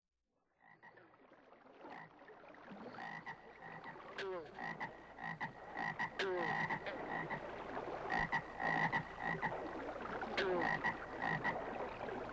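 A chorus of frogs calling, fading in over the first couple of seconds and growing louder. A steady high-pitched calling runs under repeated croaks, and three times a call falls sharply in pitch.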